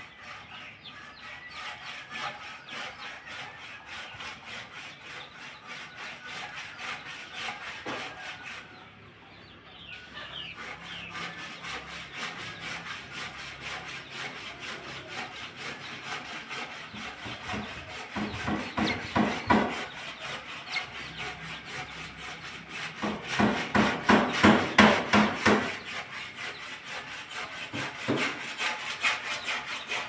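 Chickens clucking, loudest in two spells in the second half, over a steady fast ticking.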